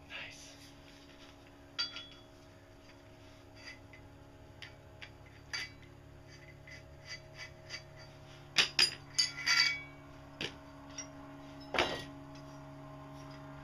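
A screwdriver scraping and tapping against a steel pedal-crank tube and rod, giving scattered light metal clinks, with a quick run of louder clinks about two-thirds of the way through and one more near the end. A steady low hum runs underneath.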